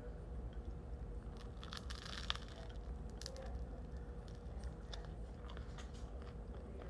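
A person biting into and chewing a piece of bread, the crust crackling in short clusters of crunches, loudest about two seconds in.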